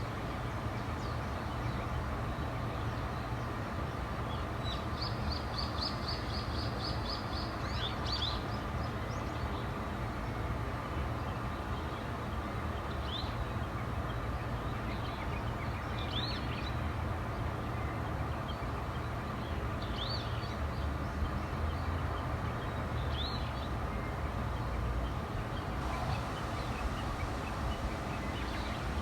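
Wild birds calling outdoors: a quick trill of about a dozen high notes, then single short chirps every few seconds, over a steady low background rumble.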